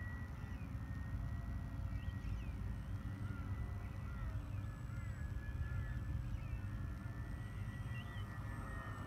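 Wind rumbling on the microphone, with the thin, steady whine of an RC plane's electric motor and propeller passing overhead, its pitch dipping slightly a few times. Small birds chirp now and then.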